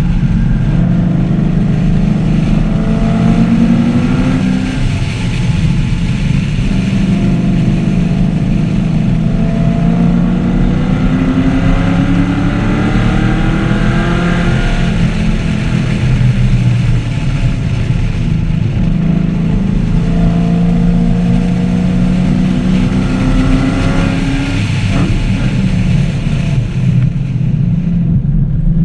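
2014 Camaro 1LE's V8 engine pulling hard on track, its note climbing steadily through the revs, then falling off, about three times over.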